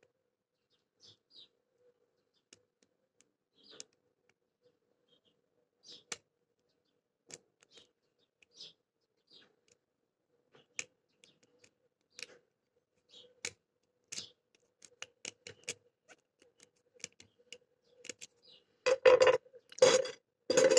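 Lock pick and tension wrench working inside an old Titan pin-tumbler padlock: sparse small clicks and scrapes as the pins are set, getting more frequent in the second half, with a couple of louder handling rustles near the end.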